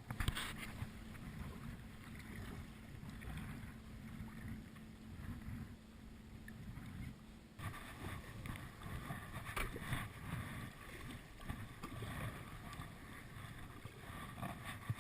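Water sloshing and splashing around a sit-on-top kayak as it is paddled, with wind rumbling on the microphone.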